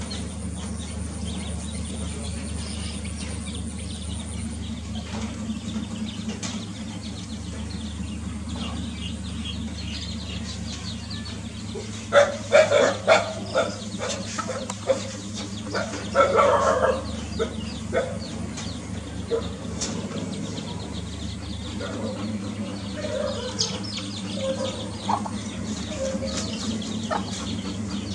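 A hen clucking to her brood, loudest in two short runs of clucks about twelve and sixteen seconds in, while her small chicks peep around her. A steady low hum runs underneath.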